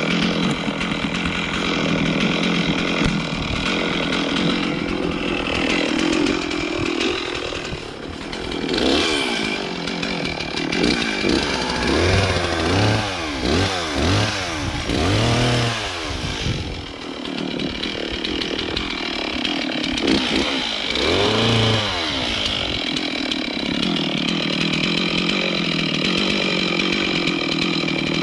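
Gas chainsaw running steadily, its engine pitch rising and falling several times through the middle stretch as it is revved and loaded.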